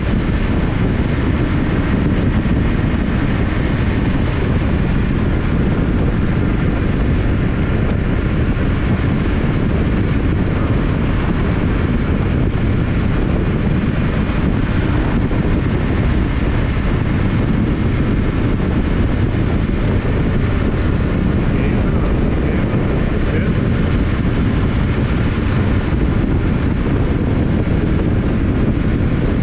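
Yamaha Ténéré 700's 689 cc parallel-twin engine running at a steady road cruise, with no revving or gear changes. Wind noise on the microphone is mixed in.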